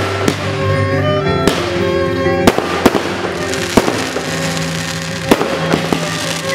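Aerial fireworks bursting, about seven sharp bangs at irregular intervals, over music with slow sustained notes.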